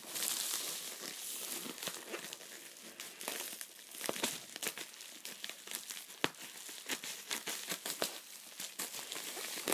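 Scissors cutting open a package while its packaging crinkles and rustles: a run of irregular short snips and crackles.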